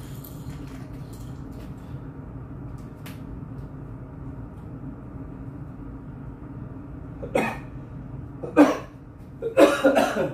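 A man coughing: one cough about seven seconds in, another a second later, then a rougher fit of coughs near the end, over a steady low hum.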